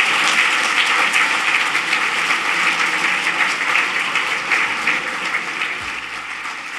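Audience applauding: a dense patter of many hands clapping, slowly growing quieter over the last few seconds.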